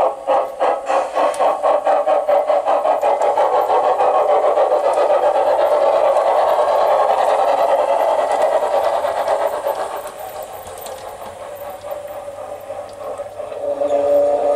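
Digital sound decoder (Zimo MX 699 with a Mathias Henning sound file) in a garden-scale model of the Saxon IK steam locomotive, playing steam exhaust chuffs through the model's loudspeaker. The chuffs quicken as the locomotive speeds up until they run together, then drop in level about ten seconds in. Near the end a steady tone with several pitches starts.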